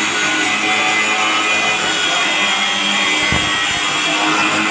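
Electric angle grinder with a cut-off disc running steadily as it cuts through a flat steel bar, along with music playing.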